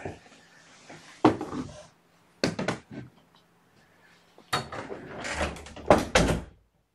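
A series of knocks and clunks from objects being handled. The loudest, a heavy thump, comes about six seconds in.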